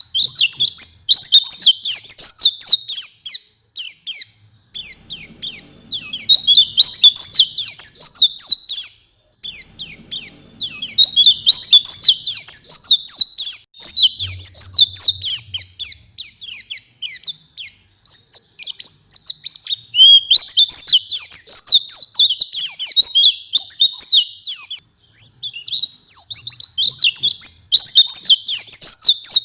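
White-eye (pleci) singing vigorously: high, rapid twittering song phrases of a few seconds each, separated by short pauses and full of varied fill notes.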